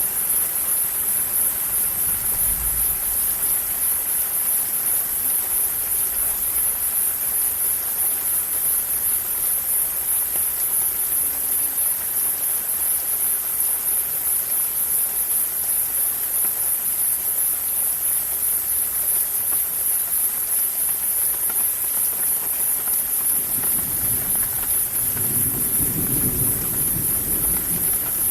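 Steady rain falling, over a continuous high-pitched hiss that stays level throughout. A low rumble fades out in the first few seconds, and another builds near the end.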